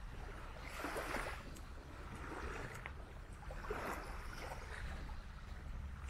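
Small waves lapping at the shore in irregular hissing washes, about one every second or so, over a steady low rumble of wind on the microphone.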